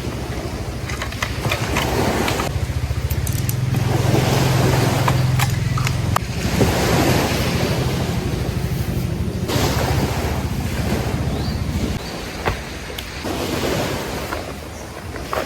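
Sea waves washing onto a beach, with wind buffeting the microphone as a low rumble; the noise shifts abruptly in level and tone several times.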